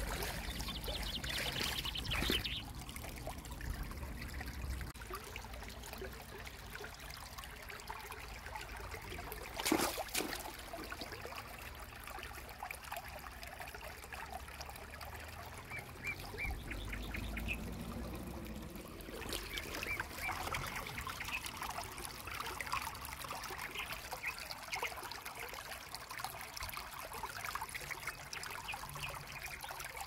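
Shallow creek water trickling and splashing over stones, with a single sharp knock about ten seconds in.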